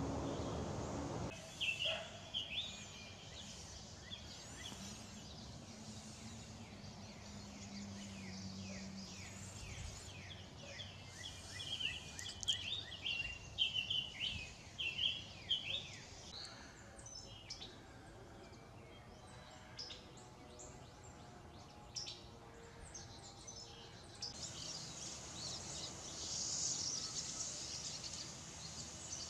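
Woodland ambience with songbirds calling: many quick, repeated chirping notes, busiest in the middle. A louder rushing noise cuts off about a second in, and a steady high-pitched hiss comes in near the end.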